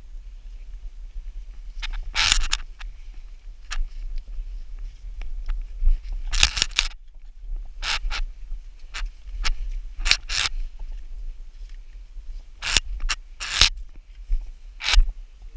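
Scrambling over boulders: brief, irregular scrapes of gloves, boots and clothing against rock, about eight in all, over a steady low rumble.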